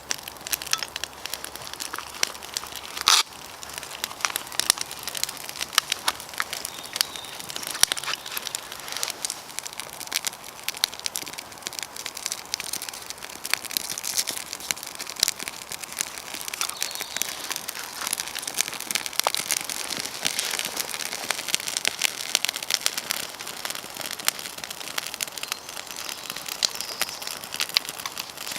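Wood fire crackling and popping steadily, with a louder pop about three seconds in.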